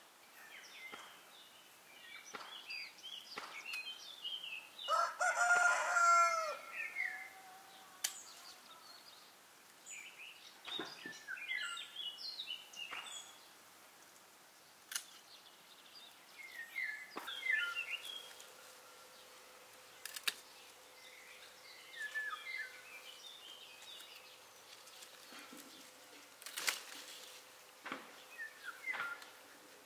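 A rooster crows once, about five seconds in, over songbirds chirping throughout. Several sharp clicks, the snips of pruning shears cutting rose stems, come later.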